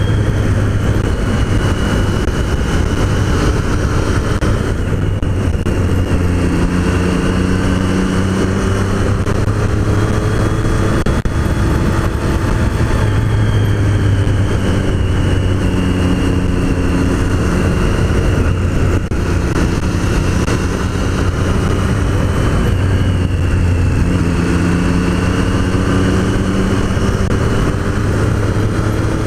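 Triumph Street Triple's three-cylinder engine running at road speed, its pitch rising and falling with the throttle through a series of bends, over a steady rush of wind on the bike-mounted microphone.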